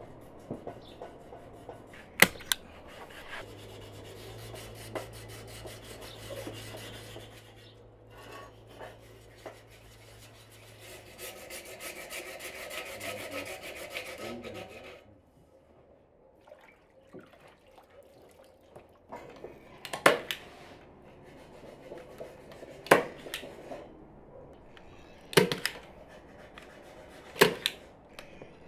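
Hand rubbing and scraping on a metal garden chair frame, with a stretch of steady scraping a little before halfway. Several sharp clicks or knocks follow in the second half.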